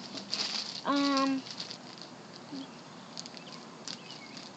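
Butter slime being handled: scattered soft wet clicks and crackles, with a short voiced sound about a second in.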